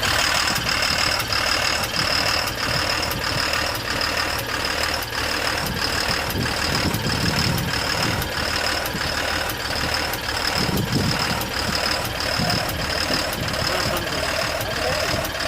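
Diesel engine of a Tata BS4 tipper idling, with a regular sharp ticking about two to three times a second over the running. This is the abnormal engine noise being diagnosed, which the fault codes tie to the fuel pump actuator and injector control valve circuits.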